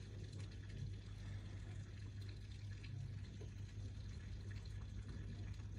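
Faint, steady rain falling over a low, steady hum.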